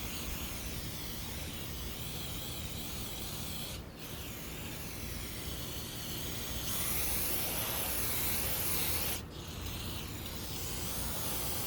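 Aerosol brake cleaner hissing steadily as it is sprayed onto greasy door-window tracks to break up old grease. The spray stops briefly twice.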